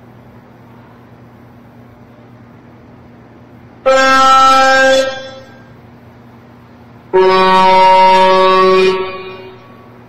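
Two blasts of a big truck's horn over steady highway traffic noise: a short, higher-pitched one about four seconds in, then a longer, lower one about seven seconds in, each dying away briefly after it stops.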